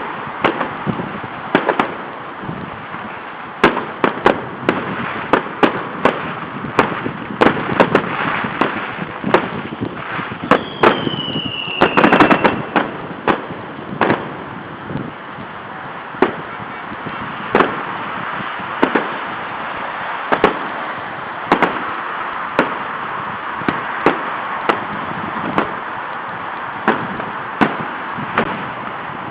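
Fireworks going off: many sharp bangs at irregular intervals, some in quick clusters, over a steady hiss, with one falling whistle about eleven seconds in.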